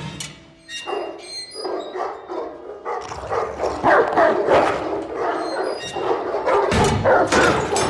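Several dogs barking, yelping and whining over one another. The sound starts suddenly and grows busier and louder about three seconds in.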